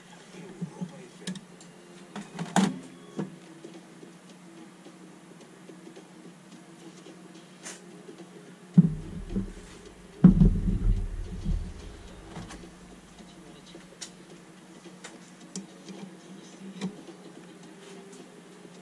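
Metal-on-metal clinks and knocks of hand work on a steel milling machine spindle assembly on a metal workbench: a few light clicks of a hook spanner on the spindle nut, a sharper clack about two and a half seconds in, then two heavy thumps about nine and ten seconds in as the spindle housing is handled on the bench, followed by a few light ticks.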